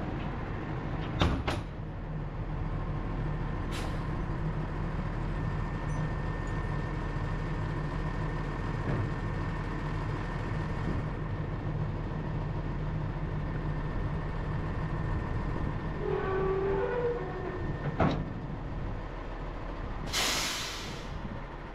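Diesel engine of a heavy tilt-bed flatbed truck running steadily while it unloads a bundle of wooden roof trusses. There are a couple of sharp knocks about a second in as the bundle comes off the bed, and a short burst of air-brake hiss near the end.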